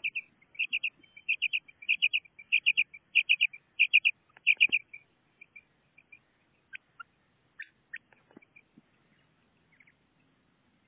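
Common quail calling: a fast series of sharp, high three-note phrases, about eight of them in the first five seconds, then only a few faint chirps and clicks.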